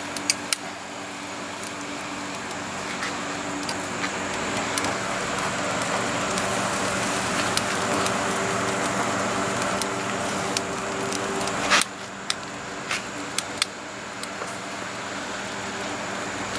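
A steady rushing noise with a low hum that swells toward the middle and drops suddenly about twelve seconds in. Scattered light clicks of metal tongs on the smoker's cooking grate as chicken breasts are turned.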